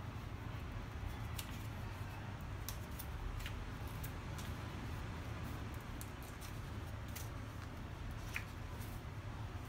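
Pages of a large hardcover book being handled and turned by hand: soft paper sounds with a few light ticks, over a low steady hum.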